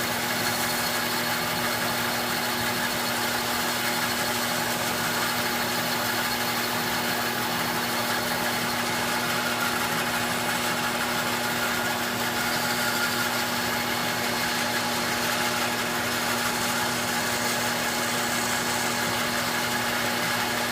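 Shop dust collector running steadily: a constant motor hum over an even rush of air.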